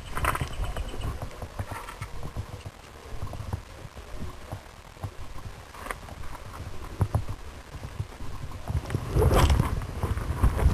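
Modified Honda VF750 motorcycle on the move, heard through a cheap webcam microphone taped to its front indicator: a low, uneven rumble with irregular thumps, louder near the end.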